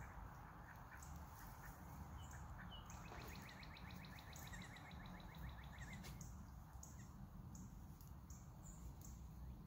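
Faint outdoor birdsong: a small bird's rapid trill of evenly repeated high notes begins about three seconds in and lasts about three seconds, with scattered faint chirps over a low steady rumble.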